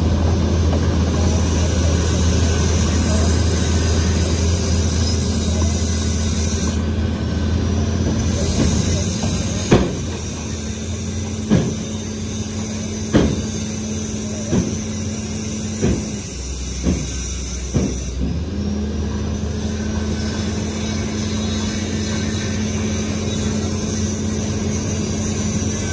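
Diesel engines of a Caterpillar 320C excavator and a dump truck running steadily, with a run of about seven sharp knocks spaced one to two seconds apart over roughly eight seconds in the middle.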